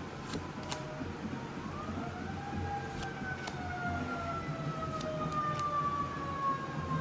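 A distant siren wailing: its pitch rises about two seconds in, then falls slowly and steadily, with a few faint clicks over it.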